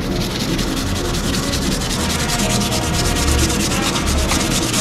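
Hand sanding a freshly oil-quenched, hardened 5160 spring-steel knife blade: quick back-and-forth scrubbing strokes of abrasive paper on the steel. The sanding is scrubbing off the quench oil and scale to bring back bare, silvery metal so the temper colour can be watched.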